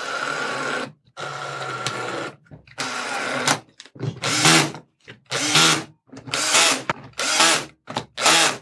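Makita cordless drill-driver driving screws into linear bearing holders. The motor runs in about eight separate bursts: three runs of about a second each, then five shorter bursts in quicker succession.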